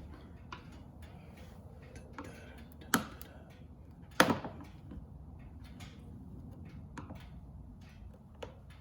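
Small plastic clicks and taps while a car door's under-door light housing is being worked loose, with two sharp, louder snaps about three and four seconds in.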